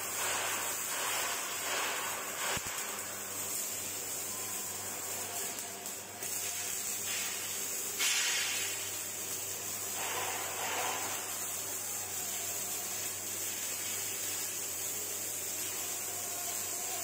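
Steady hissing noise from a steel fabrication workshop. It gets louder for a while about eight seconds in.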